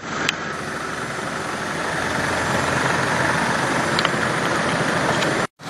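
Steady outdoor ambient noise: an even hiss with no clear pitch that slowly grows louder, with a couple of faint clicks, cutting off abruptly near the end.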